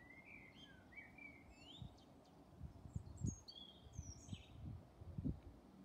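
Outdoor birdsong: a small songbird singing short, varied whistled phrases that slide up and down in pitch. Irregular low thumps against the microphone come in the second half and are the loudest sounds, at about three seconds and again near the end.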